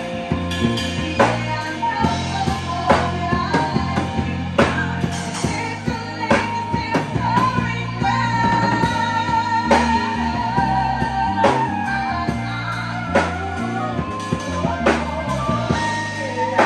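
Live band playing: a woman singing over electric bass, drum kit and keyboard, holding one long wavering note midway through.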